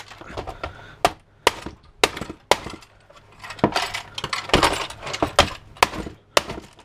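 Plastic housing of a space heater being pried and broken open by hand: a string of sharp, irregular cracks and knocks, coming thicker about halfway through.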